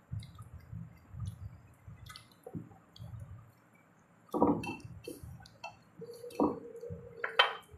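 Soft, wet chewing of momo chatpate, with small clicks of spoons against steel dishes. A short voiced sound comes about halfway through, and a held hum near the end glides up sharply.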